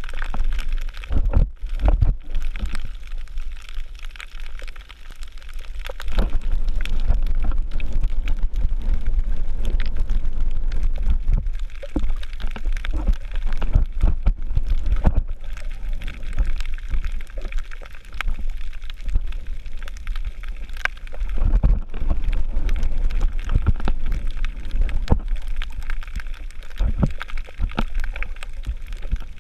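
Underwater sound picked up by a GoPro inside its waterproof housing: a low rumble of moving water with frequent sharp clicks and crackles.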